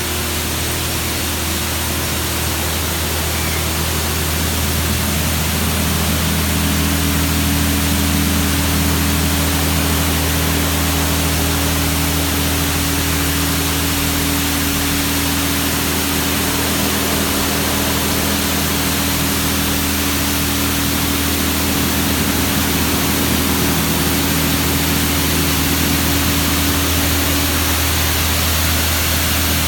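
Jim Coleman WaterWizard touch-free in-bay automatic car wash running: a steady hiss of water spraying from its nozzles over a constant low machine hum. A steady higher hum joins about six seconds in and the sound grows slightly louder.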